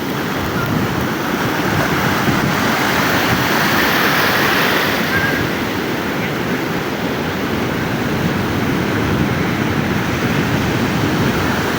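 Sea surf breaking and washing up the beach: a steady rush of waves that swells a little about four seconds in.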